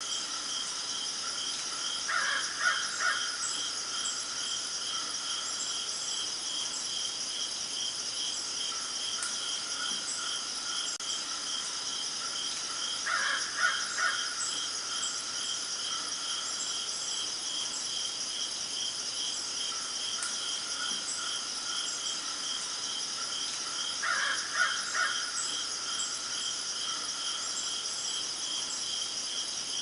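A steady, high chorus of night insects such as crickets, chirring without a break. Three times, about every eleven seconds, a bird calls a short run of a few harsh notes over it.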